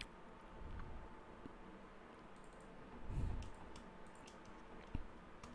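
Faint computer mouse clicks, a few scattered ones, mostly in the second half, over low room hiss and a thin steady hum.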